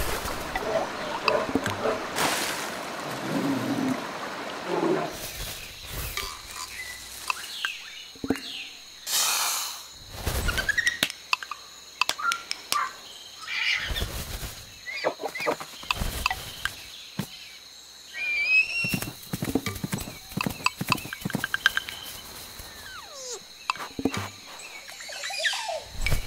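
Tissue paper rustling and crinkling as it is handled and folded, among soft thumps and short chirping animal calls.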